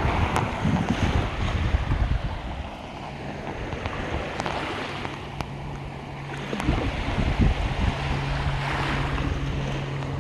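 Ocean surf washing ashore, swelling and easing, with wind buffeting the microphone in gusts near the start and again about two thirds of the way in.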